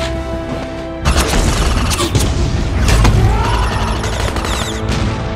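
Film battle sound mix: a dramatic film score with explosions and gunfire. A loud blast breaks in about a second in, followed by rumbling detonations and shots under the music.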